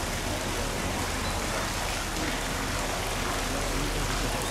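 Steady hiss of water, even and unbroken.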